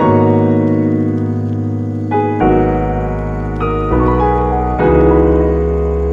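Instrumental background music: electric piano chords over a low bass, the chord changing every one to two seconds.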